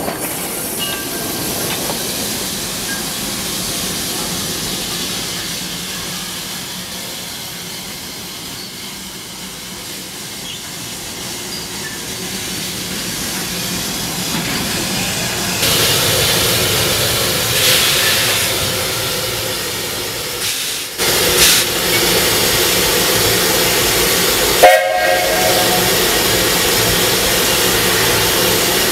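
Small steam locomotive standing with steam hissing steadily from its cylinders and valves, louder in the second half. A sharp knock comes about 25 s in, and steady tones then sound alongside the hiss.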